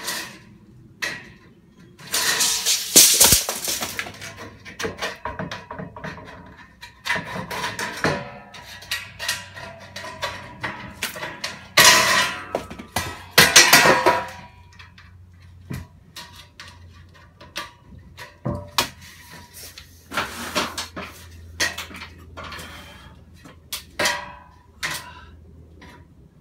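Long metal strip being handled and worked for a ceiling: irregular clattering and clanking knocks with a brief metallic ringing, loudest about 3 seconds in and again around 12 to 14 seconds, over a low steady hum.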